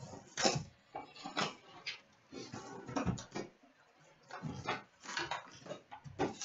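Plastic shrink-wrap crinkling and a cardboard trading-card box being handled and opened, with irregular light taps and knocks against a glass tabletop as the card packs are pulled out.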